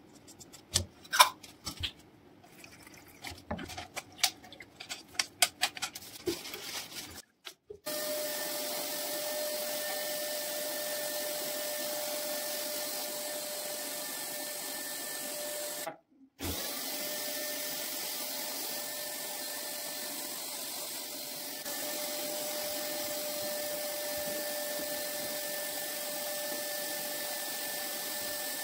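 Scattered clinks and taps of a paint tin and plastic cup being handled while paint is mixed. Then, after a cut, an air compressor runs with a steady drone and a constant whine, broken briefly by another cut about halfway through.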